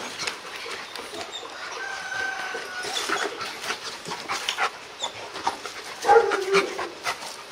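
Two Rottweilers play-fighting: scuffling and rolling on dirt, with a short vocal sound from one of the dogs about six seconds in, the loudest moment.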